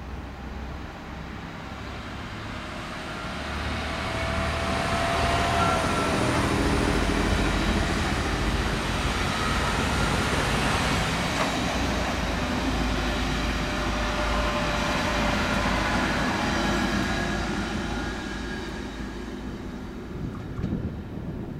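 DSB intercity multiple-unit train passing close by on the near track: its running noise builds over the first few seconds, stays loud through the middle, and fades near the end as the last car goes by.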